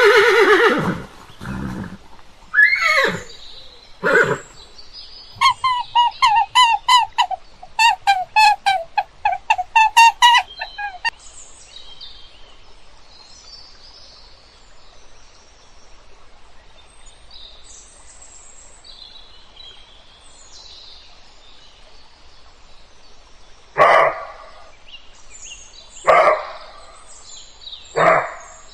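A horse whinnying at the start, then more animal calls: a run of about fifteen short, evenly spaced calls, faint high chirping in the middle, and three short loud calls near the end.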